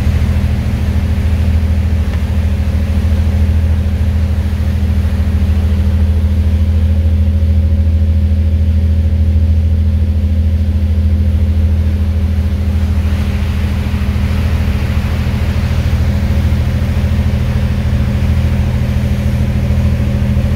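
Tugboat's diesel engine running hard and steadily under load while it pushes a freighter, a deep constant drone. A rushing wash of churned water rises about two-thirds of the way through.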